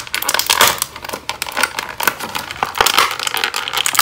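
Clear plastic blister packaging crinkling and crackling as hands pry a stuck action figure out of it.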